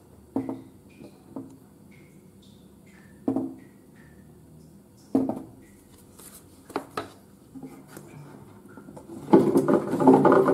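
Empty plastic drink bottles knocking against each other and the glass of a hamster tank: scattered single knocks as the hamsters push and climb on them, then a loud burst of clattering near the end as the bottles are shifted by hand.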